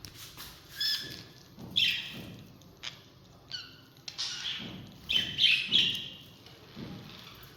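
A parrot calling: a series of short, harsh squawks and chirps, several coming close together about five seconds in.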